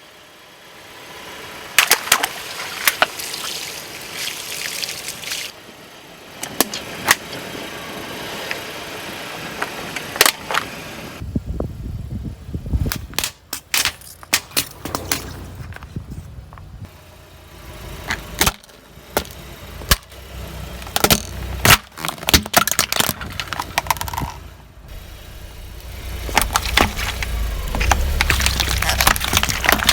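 A car's tyres rolling over and crushing objects: a string of sharp cracks and crunches over the low rumble of the car, which grows louder near the end.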